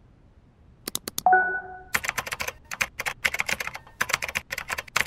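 Typing sound effect: a few quick key clicks, a short bell-like ding about a second in, then rapid, continuous clacking of keys.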